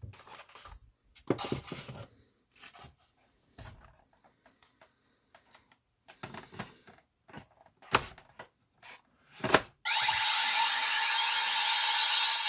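Hard plastic toy parts of a CSM V-Buckle belt set being handled, with scattered clicks and rustles and two sharp snaps near the end. About ten seconds in, a loud steady electronic sound starts and holds.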